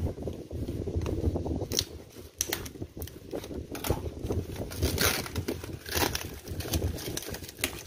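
Hands rubbing and scraping over a taped cardboard shipping box, with irregular crinkling of the plastic packing tape.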